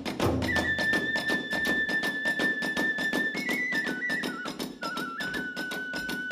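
Kagura hayashi ensemble playing: a bamboo flute holds long notes that step down in pitch, over a fast, steady beat of drum strikes and small hand cymbals. A heavy big-drum thump sounds right at the start.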